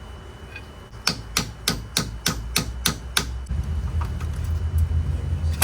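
Hammer blows on metal, about eight sharp strikes at roughly three a second, each ringing briefly, knocking at a wheel hub assembly that is stuck fast in the steering knuckle.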